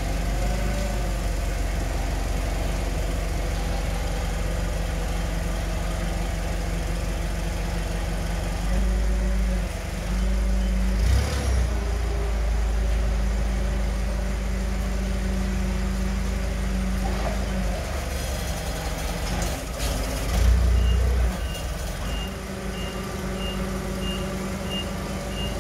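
Propane-fuelled Nissan forklift engine running steadily, rising in level twice as the forklift is driven and its mast worked, with a knock about 11 s in. In the last few seconds a backup beeper sounds, a little under twice a second.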